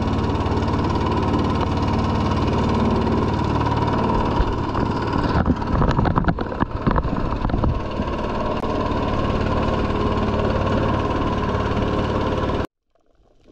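Small motorboat's engine running steadily under way, with a stretch of uneven knocks about halfway through. The sound cuts off abruptly near the end.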